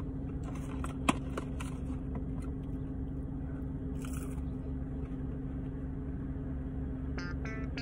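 Steady low hum of a car interior, with a soft bite into a chicken nugget about four seconds in. Plucked-string background music starts near the end.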